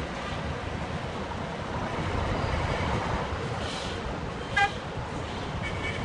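Busy street traffic ambience: a steady wash of passing vehicles, with one short car horn toot about four and a half seconds in, the loudest sound.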